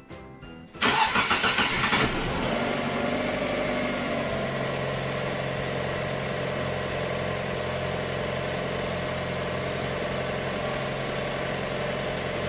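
Lancia 1.4 16V four-cylinder petrol engine (843A1000), just fitted with new connecting rod bearings, being started. The starter cranks for about a second, the engine catches and runs a little fast, then settles to a steady idle about four seconds in.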